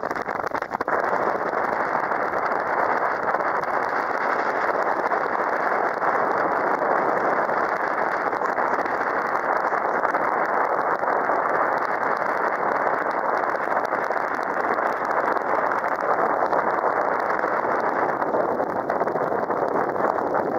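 Steady rushing noise of a small open tour boat under way on a river, with wind on the microphone.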